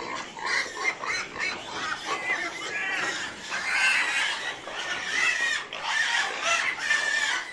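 A group of pigs squealing, many short calls overlapping one another.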